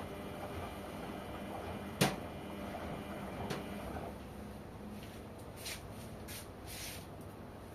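LG washing machine running mid-cycle with a steady low hum, a sharp click about two seconds in and a fainter click shortly after, then a few short hisses near the end.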